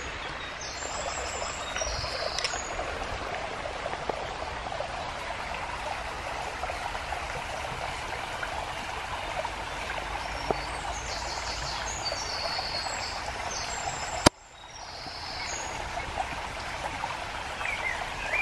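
Shallow woodland brook babbling steadily over stones. A single sharp click about fourteen seconds in, after which the water sound briefly drops away and swells back.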